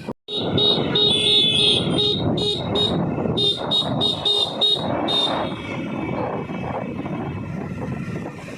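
A vehicle horn honks in a rapid run of short toots for about five seconds, over the steady rumble of road traffic.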